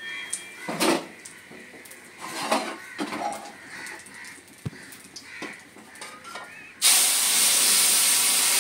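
Boiled masoor dal poured from a pressure cooker into hot oil tempered with cumin and dried chillies in an iron kadai: a sudden loud sizzling hiss begins near the end. Before it, a few light knocks of utensils.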